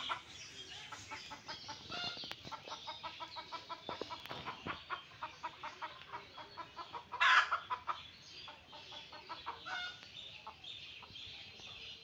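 Junglefowl clucking in a rapid run of short notes, several a second, with one louder, longer call about seven seconds in; the clucks thin out near the end.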